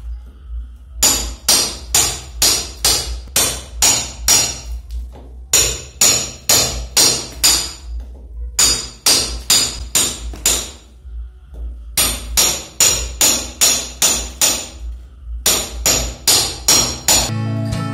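Hammer striking a cold chisel to cut a channel into a plastered wall for a water pipe: sharp metallic strikes about three a second, in runs of several seconds with short pauses between.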